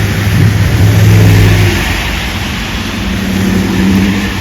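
Road traffic passing close by on a wet street. One vehicle's engine hum swells to its loudest about a second in and fades by two seconds. A second engine rises and passes near the end, over a steady hiss of tyres on the wet road.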